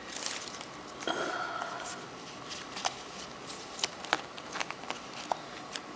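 Paper stickers being handled after a sticker pack is torn open: scattered light clicks and paper taps.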